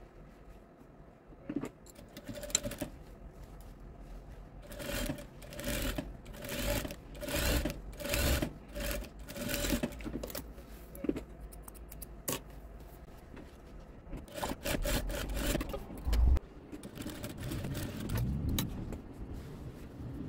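JOYEE industrial lockstitch sewing machine stitching through layers of towel and batting, run in short start-stop bursts of about a second, each with a steady motor whine and needle rattle. A few sharp clicks come between the bursts.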